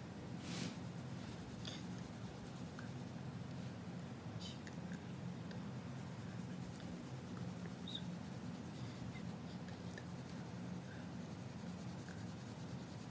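Colored pencil scratching back and forth on paper as an area is shaded in, over a steady low hum.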